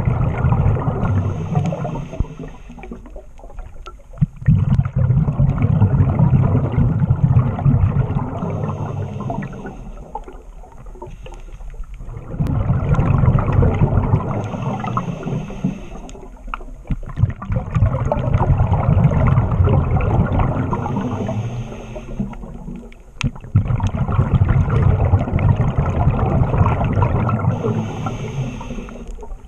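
Scuba diver breathing through a regulator underwater: a hiss on each inhale, then a long rush of exhaled bubbles, repeating every five or six seconds, about five breaths.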